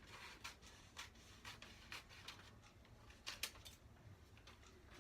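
Scissors snipping paper, a series of short, faint snips about twice a second.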